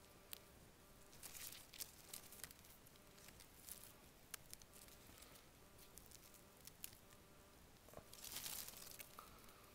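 Faint rustling and light crackling of dry leaves and twigs on the forest floor: scattered small clicks, with a longer rustle about eight seconds in.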